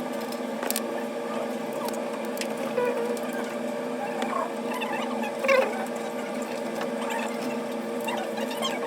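Steady mechanical hum of a small motor with scattered light clicks and short squeaky chirps, the loudest a little past halfway.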